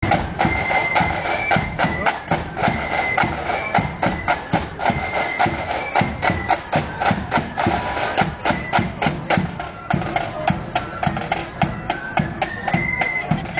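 Marching flute band playing on parade: rapid side-drum strokes and bass drum beats under a high flute melody.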